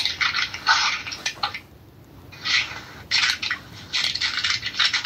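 Crinkling and rustling handling noise in several irregular bursts, each under about a second and a half, with small clicks and short pauses between them.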